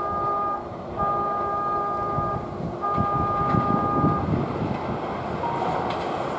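Three long, even toots of a train-approach warning signal, each about a second and a half with short gaps, as a JR West 289 series limited express approaches the station, over a steady low rumble.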